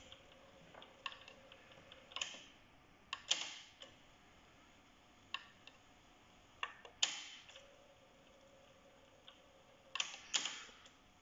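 Sharp mechanical clicks and clunks of a Kenwood KX-74R cassette deck's transport keys and mechanism, every second or two and some in quick pairs, with a faint steady motor hum for a few seconds near the end. The deck does fast winding but won't go into play, a fault the owner traced to a rotten drive belt.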